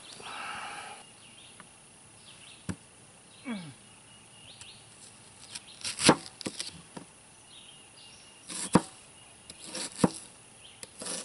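Knife cutting an onion on a plastic cutting board: a scattering of sharp knocks as the blade goes through and strikes the board, the loudest about six seconds in and several more near the end.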